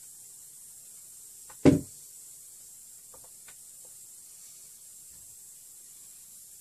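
A pair of pliers set down on the work table with a single sharp thud, followed a little later by a few faint light clicks of small parts being handled.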